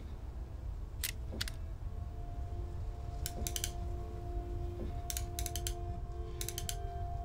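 Revolver cylinder clicking as it is turned by hand, the clicks coming in quick groups of two to four every second or two. A steady held tone comes in under it after about a second and a half.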